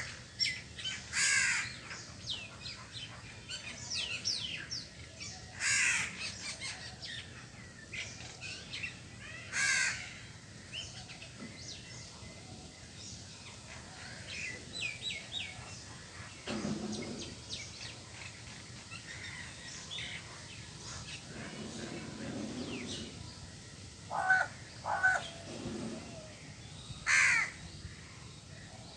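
Crow cawing: several loud, harsh caws a few seconds apart in the first ten seconds, two shorter calls late on and another caw near the end. Small birds chirp faintly between the caws.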